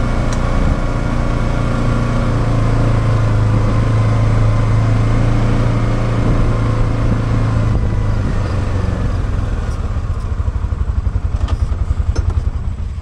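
Polaris 570 ATV's single-cylinder engine running steadily while riding a trail. About eight seconds in, the steady engine note drops away into a lower, pulsing beat, with a couple of light clicks near the end.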